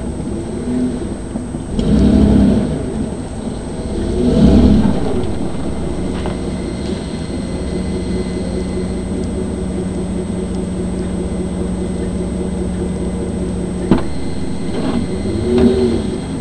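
Ford F-150 pickup's engine revved in two short bursts in the first few seconds, pitch rising and falling, then settling to a steady idle. A sharp click comes shortly before a smaller rev near the end.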